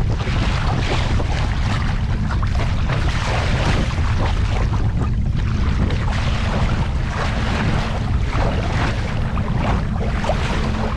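Small boat under way on a lake: water rushing and splashing along the hull and wind buffeting the microphone over a steady low rumble.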